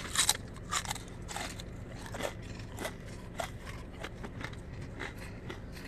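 Crunchy shrimp crackers being eaten and handled from a crinkly snack bag: irregular short crunches and crackles.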